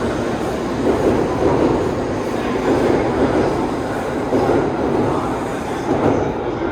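Tokaido Shinkansen train running at the platform, a steady dense noise that swells about once a second.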